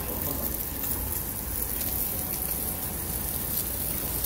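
Pork sizzling on a grill: a steady hiss with faint scattered pops.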